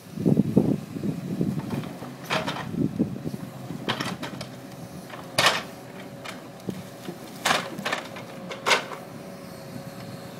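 Logs knocking and clattering as a lorry-mounted Epsilon timber crane's grapple lowers a bundle onto a log pile and lets it go. There are about five sharp knocks spaced a second or more apart, over the crane's steady hydraulic hum.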